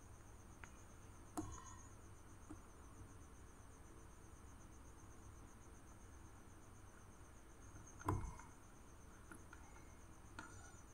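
Faint, steady high-pitched trill of a cricket, with two soft handling knocks, one about a second and a half in and a louder one about eight seconds in.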